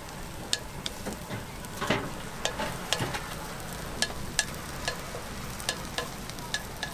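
Batter frying on a hot cast-iron chrysanthemum-bread (gukhwa-ppang) mold, a steady sizzle broken by frequent, irregular sharp clicks as a skewer scrapes and pokes the batter around the mold.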